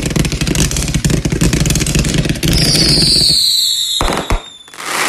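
Consumer fireworks going off: rapid crackling for about three seconds, then a high whistle that slowly falls in pitch, two sharp pops about four seconds in, and a short burst of hiss near the end.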